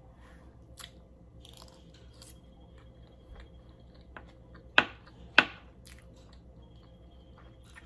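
A person chewing food close to the microphone, with soft mouth clicks throughout and two loud sharp clicks a little over halfway through.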